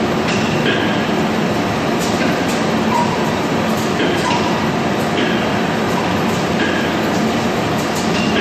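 Metal lathe running steadily while boring out a part, with a short high squeak coming back about once a second.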